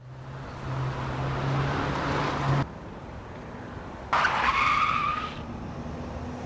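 Car driving in with its engine running, then a short tyre screech about four seconds in as it pulls up, followed by the engine idling.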